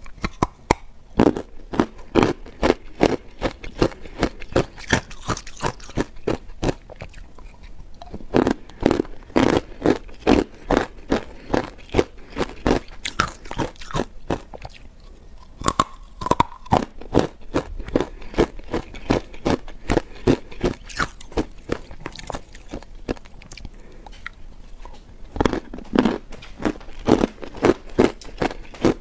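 Hard ice coated in matcha powder being bitten and chewed, sharp crunches in quick runs with a few short pauses between mouthfuls.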